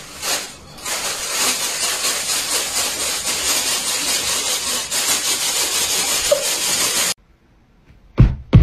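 A thin plastic bag crinkling and rustling without a break as a cat moves with its head inside it; the rustling cuts off suddenly. Near the end come two sharp, loud knocks.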